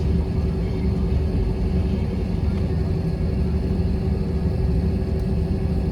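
Airliner cabin noise in flight: a steady, loud rumble of the engines and rushing air, with a constant hum running through it.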